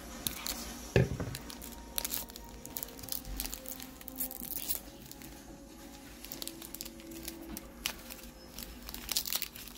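A snip of scissors cutting across the top of a foil trading-card pack about a second in, the loudest sound, followed by scattered crinkling and crackling of the foil wrapper as it is pulled open and the cards are slid out.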